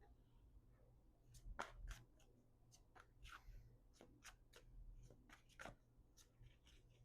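Faint handling of tarot cards: scattered soft clicks and rustles, about a dozen, over a low steady hum.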